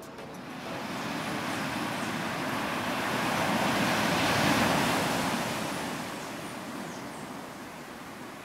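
Ocean surf: a wave rushes in and washes up the beach, building to its loudest about halfway through and fading away.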